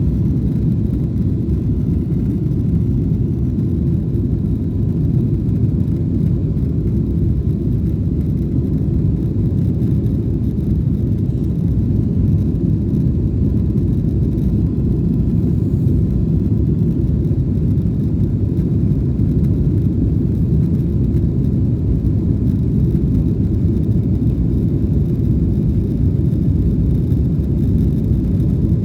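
Boeing 777-300ER's twin GE90-115B turbofans and airflow during takeoff: a steady low rumble that holds level throughout.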